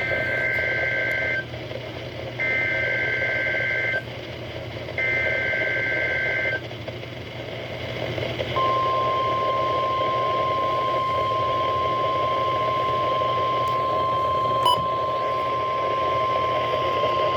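NOAA Weather Radio Required Weekly Test over a weather-radio receiver: three bursts of about one and a half seconds each of the two-tone SAME digital header warble, a second apart. After a short pause comes a steady 1050 Hz warning alarm tone, held for about nine seconds over receiver hiss.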